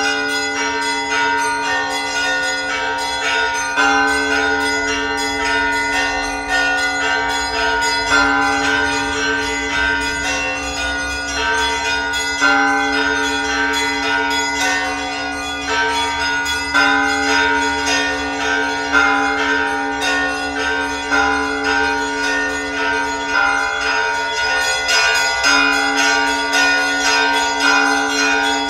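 Church bells ringing: a fast, continuous peal of smaller bells over a deeper bell struck about every four seconds, each strike leaving long-ringing tones.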